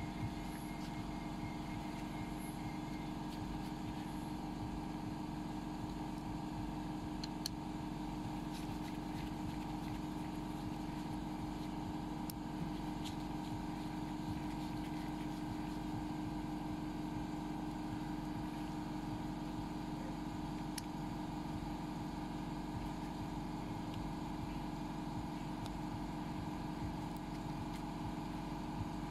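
A steady mechanical hum with several level tones that does not change, and a few faint, sparse clicks over it.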